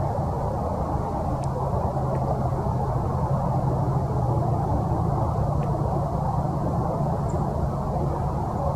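Steady low rumble of distant road traffic with a low hum. A few faint, scattered high ticks sound over it.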